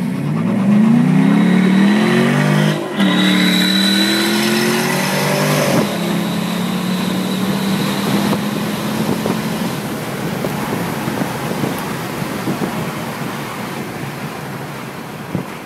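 Cars accelerating hard side by side, heard from inside one car's cabin: the engine note climbs, breaks at a gear shift about three seconds in, climbs again to a second shift near six seconds, then holds steady before wind and road noise take over.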